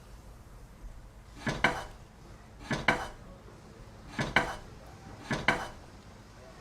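Light metal clinks: four pairs of quick double strikes, each pair about a second and a quarter after the last.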